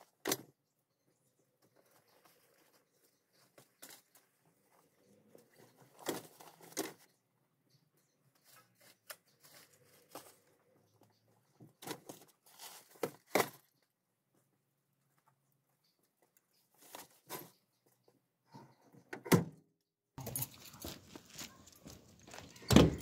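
Camping gear and bags being loaded into the cargo area of a small 4x4, heard from inside the cabin: scattered rustles, knocks and thuds as items are pushed in and set down. About 20 seconds in, outdoor background noise starts, with a loud knock near the end.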